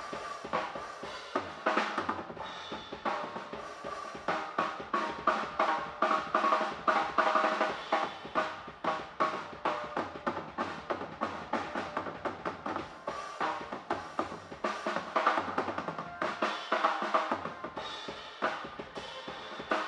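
Live band playing a busy drum-kit beat, snare and bass drum in front, with keyboards and electric guitar.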